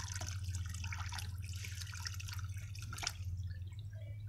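Water poured from a plastic container into a water-filled tub, splashing and trickling unevenly onto the surface, with one sharper splash about three seconds in.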